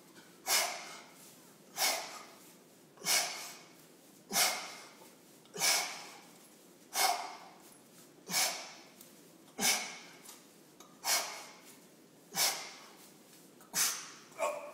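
A man's forceful breaths blown out through pursed lips, about a dozen short puffs at an even pace of roughly one every 1.3 seconds, one for each repetition of a dumbbell shoulder exercise.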